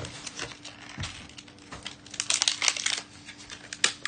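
Clear plastic toy packaging being handled and opened, crinkling and crackling in a dense run about two seconds in, with a few sharp clicks around it.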